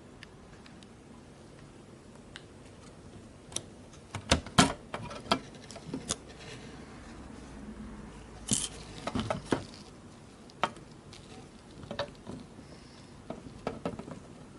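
Irregular clicks, taps and knocks of small hard objects being handled, with some light rustling. The loudest knocks come in clusters about four seconds in and just past the middle, and fainter taps follow near the end.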